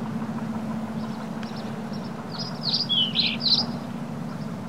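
A small songbird sings a short quick run of chirping notes just past the middle, over a steady low hum.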